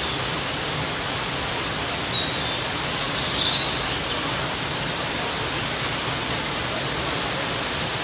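Looking Glass Falls, a waterfall crashing down a rock face, gives a steady, full rushing hiss. A few short high-pitched sounds rise briefly above it about two to three and a half seconds in.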